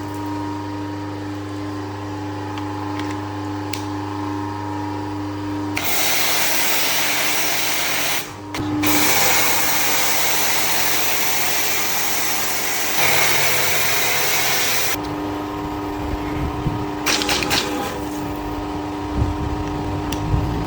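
Pressure washer running with a steady motor hum. For several seconds in the middle it gives way to the loud hiss of a high-pressure spray, which drops out briefly near 8 s, before the hum returns.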